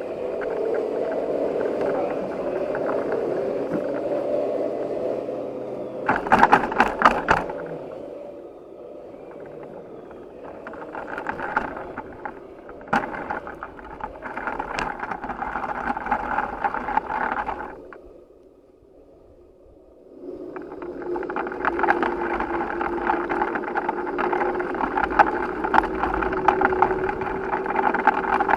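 Radio-controlled 1:14 scale truck running, with a steady mechanical whir and rattles. There is a loud clatter about six seconds in, and the sound almost stops for a couple of seconds before starting up again.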